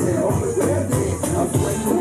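Loud music with a steady beat and a melody line.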